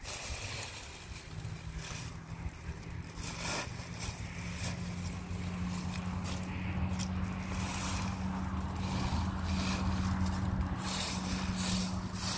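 Dry fallen leaves rustling and crunching as they are scooped up by hand and pushed into a woven plastic sack. Under it a steady low motor hum comes in about a second in and grows louder.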